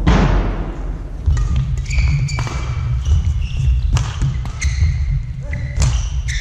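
Badminton rackets striking shuttlecocks, sharp cracks roughly every second with the first ringing on in the hall, mixed with short squeaks of players' shoes on the court floor over a steady low hall rumble.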